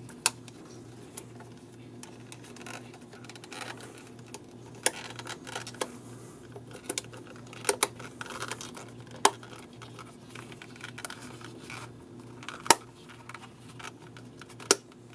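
Hands handling and fitting together a leather knife sheath: leather rubbing, with several sharp clicks spread through from its brass hardware.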